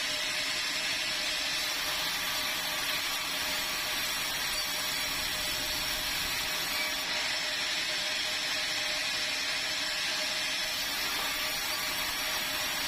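Sawmill saw running with a steady, even hiss and a faint steady hum beneath it.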